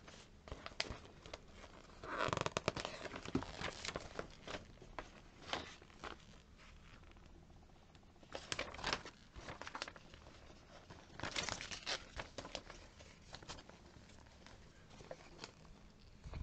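Paper catalog pages and flyers rustling and crinkling as they are handled and turned, in several irregular bouts, the busiest about two seconds in.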